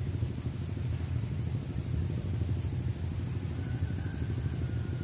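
Wind buffeting the microphone: a continuous low rumble that rises and falls unevenly, with a steady thin high-pitched tone above it.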